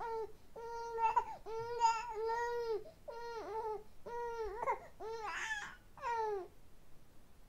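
Young baby cooing: a run of drawn-out, high-pitched vowel sounds one after another, stopping about six and a half seconds in.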